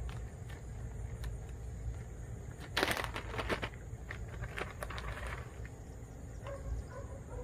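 Plastic zip-top bag of soil crinkling and rustling as it is handled and opened, with scattered small clicks and a louder burst of crinkling about three seconds in.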